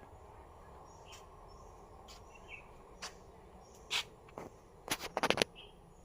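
Outdoor garden ambience: a steady low background hiss with a few faint bird chirps. Several sharp clicks cut through, a quick cluster of them about five seconds in being the loudest sound.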